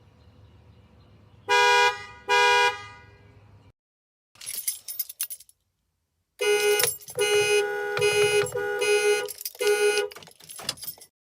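Car panic alarms sounding the horn: two short, loud honks, then after a gap a longer run of repeated honks, about two a second.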